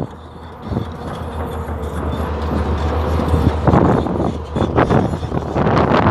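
Hyundai Robex 480LC-9S excavator's diesel engine running with a steady low drone, with louder, rough bursts of noise from about four seconds in.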